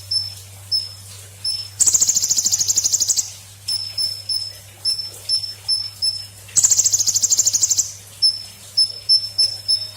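Golden grasshopper (belalang emas) calling: short, high chirps repeated about twice a second, twice breaking into a rapid buzzing trill of about fifteen pulses a second that lasts just over a second. A low steady hum sits underneath.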